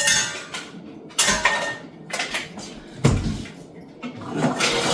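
Kitchen clatter: dishes and utensils knocked and set down, four sharp clinks and knocks spread about a second apart.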